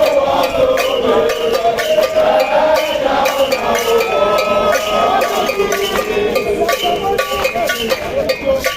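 Frequent metallic percussion hits over voices singing a wavering melody.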